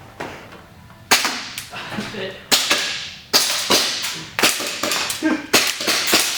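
Airsoft guns firing: a run of sharp shots at irregular spacing, beginning about a second in.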